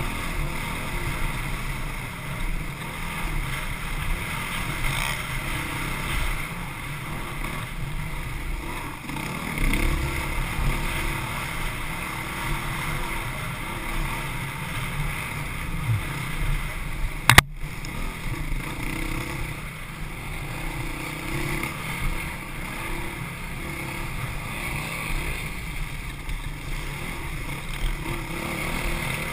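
Dirt bike engine running under load, heard from a camera mounted on the moving bike. A single sharp knock stands out a little past halfway through.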